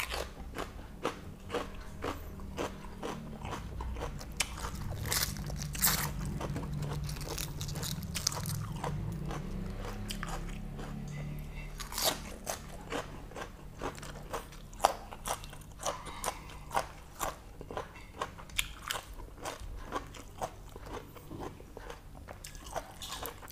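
Close-up chewing and biting of a mouthful of boiled pork intestines wrapped in fresh lettuce: wet, crunchy mouth sounds with sharp clicks about twice a second.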